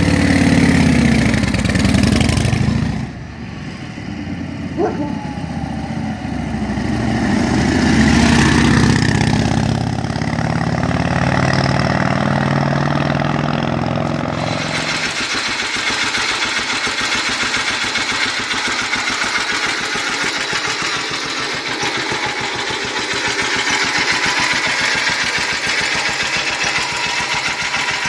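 Military motorcycle engines running: one engine idling and revving up and down, then, about halfway through, a different engine running steadily with a fast, even firing beat.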